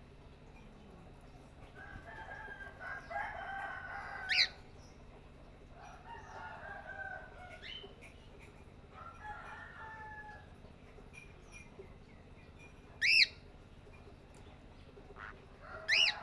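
Birds calling: three longer harsh calls in the first ten seconds, and three short, sharp screeches rising in pitch, the loudest about 13 seconds in.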